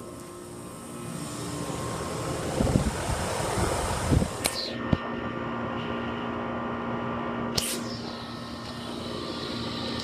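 Goodman heat pump outdoor unit running with a steady mechanical hum. About halfway through the first half there are a couple of seconds of low rumbling thumps, and two sharp clicks follow a few seconds apart.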